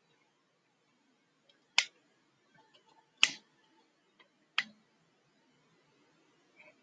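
Three sharp single clicks, about a second and a half apart, with a few much fainter ticks between them.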